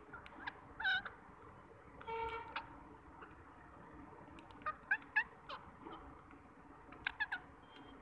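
Rose-ringed parakeets calling: short harsh squawks in scattered bursts, one about a second in, a longer one around two seconds, a quick run of three or four near the middle and two more near the end.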